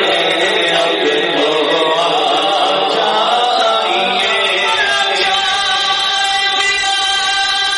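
A man singing a naat, an Urdu devotional poem, unaccompanied into a microphone, with melismatic, wavering lines that settle into long held notes from about five seconds in.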